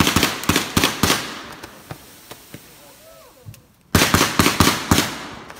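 Aerial fireworks bursting overhead: a rapid volley of sharp bangs and crackles right at the start, a few faint pops, then a second volley about four seconds in, each volley lasting about a second.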